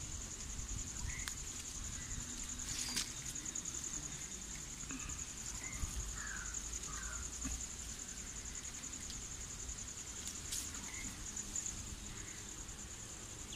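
Insect chirring, a steady high-pitched trill with a fine, fast pulse, with a few faint short bird chirps and low rumble of wind on the microphone.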